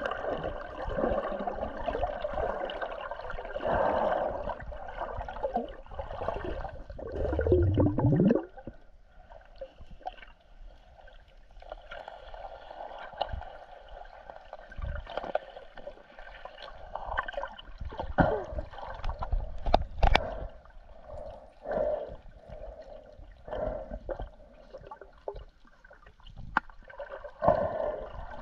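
Water gurgling and sloshing around an underwater camera housing, with a loud rising gurgle about eight seconds in and scattered sharp clicks and knocks later on.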